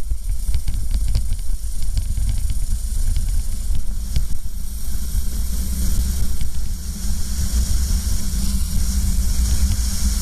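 Racing kart at speed heard from an onboard camera: a low engine drone under heavy wind rush over the microphone. A run of sharp clicks comes in the first few seconds, and in the second half the kart is accelerating hard out of a corner.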